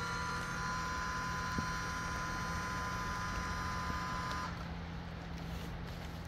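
Greenworks Commercial battery-powered capstan winch's electric motor whining steadily as it hauls the rope and pulls the stuck Jeep. The whine cuts off about four and a half seconds in.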